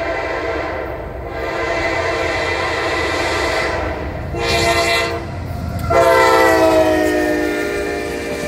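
Norfolk Southern freight locomotive's air horn sounding as the train comes by: a held chord that breaks off about four seconds in, a short blast, then a long final blast that falls in pitch. The low rumble of the rolling train runs underneath.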